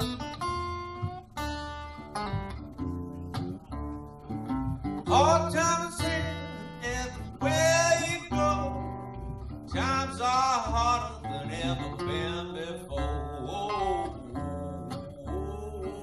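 Live acoustic blues: a Gretsch Jim Dandy parlor acoustic guitar picked and strummed, with a man's singing voice coming in about five seconds in.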